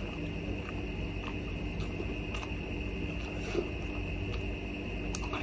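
Faint eating sounds from steamed momos being chewed, with a few soft mouth clicks, the clearest about three and a half seconds in, over a steady room hum.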